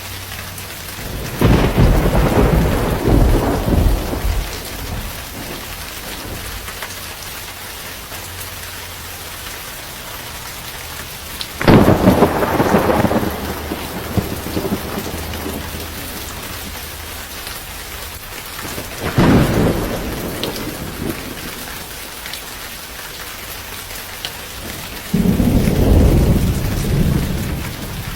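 Steady heavy rain in a thunderstorm, with four peals of thunder rolling through, each lasting a few seconds. The one near the middle starts with the sharpest crack and is the loudest.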